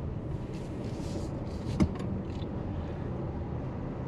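Car driving in city traffic, heard from inside the cabin: a steady low rumble of engine and road noise, with a single sharp click a little under two seconds in.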